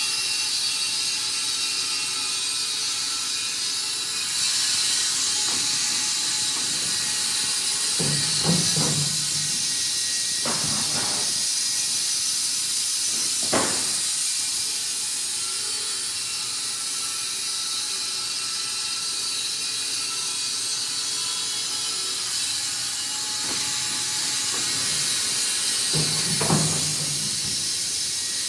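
Wood-Mizer industrial band sawmill running with a steady high hiss, punctuated by a few short knocks.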